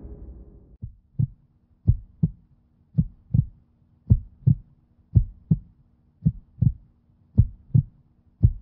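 Heartbeat sound effect: paired low thumps, lub-dub, repeating slowly at about one beat a second, starting about a second in. A low rumbling sound fades out in the first second.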